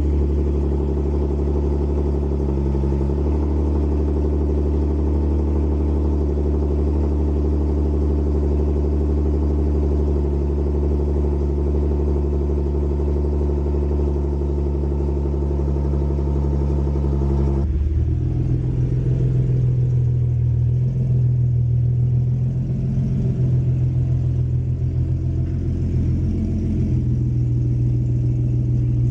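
Car engine idling steadily just after being started; about 18 seconds in its note changes abruptly and wavers as the car is driven off slowly.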